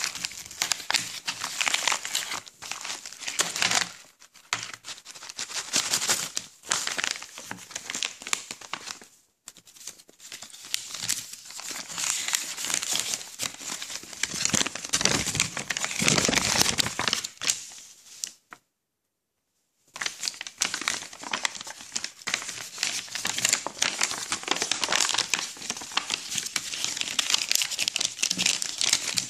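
Plastic mailing envelope and paper packing being crinkled, crumpled and torn open by hand: a dense, continuous rustling and crackling, broken by about a second of silence two-thirds of the way through.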